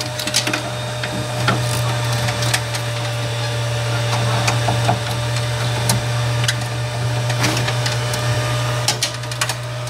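Steady low electrical hum of a running power inverter with a faint higher whine, overlaid by scattered clicks and rubbing from hands handling the camera and voltmeter.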